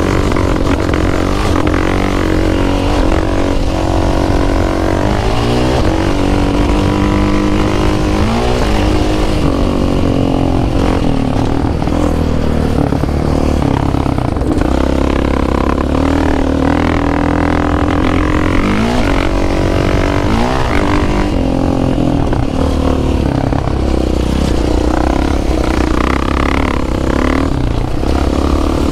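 ATV engine running hard on a ride, its pitch sweeping up sharply several times as the throttle is opened and the gears go up.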